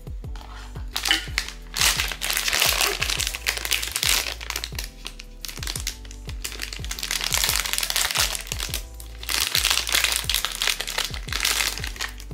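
Packaging of a POP MART blind box crinkling as it is opened, in three long spells of rustling, over background music.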